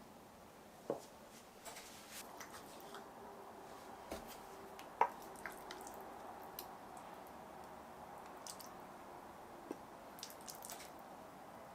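Faint, quiet food-handling sounds: scattered small clicks and taps with soft, wet squishing, the sharpest tick about five seconds in.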